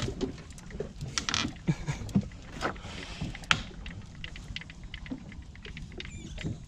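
Small boat at sea: a steady low rumble of wind and water, with scattered irregular knocks and clicks from gear on board and a brief high squeak about six seconds in.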